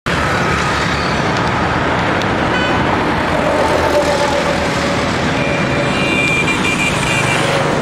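Steady city road traffic, with a short horn toot about two and a half seconds in and a longer horn sounding over the last two seconds or so.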